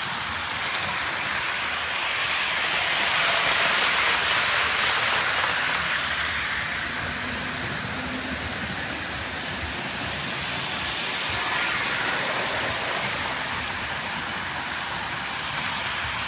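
Several model trains running at once on floor track: a steady rolling whir and rumble of wheels and motors, growing louder a few seconds in, with one sharp click about eleven seconds in.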